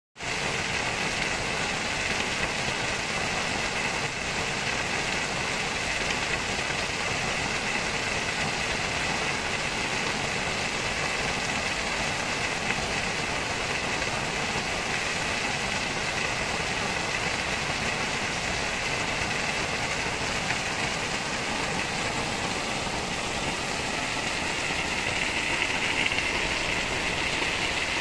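Small waterfall splashing down over boulders into a rocky stream: a steady rush of falling water.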